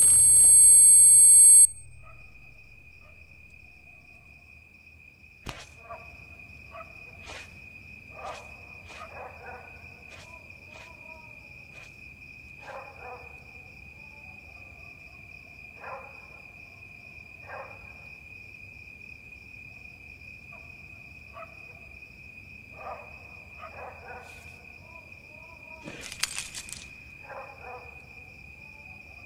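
Crickets chirring steadily in a night ambience, with scattered short faint calls and clicks and a brief rustle about 26 seconds in. A loud sound cuts off abruptly just under two seconds in.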